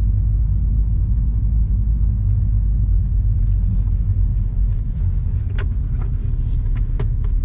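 Steady low rumble inside the cabin of a MINI JCW GP driving in slow traffic, its two-litre turbocharged four-cylinder running at low revs. A few sharp clicks come in the last couple of seconds as the infotainment controls are worked.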